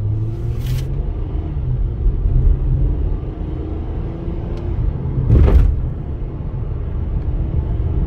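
Honda Accord V6 engine and tyres heard from inside the cabin while driving, the engine running smoothly now that its valves have been adjusted, under a steady low rumble. A single thump comes about five and a half seconds in.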